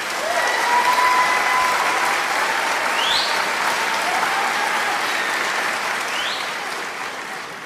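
Audience applauding, with a few short rising whistles. The applause swells about a second in, then slowly dies down.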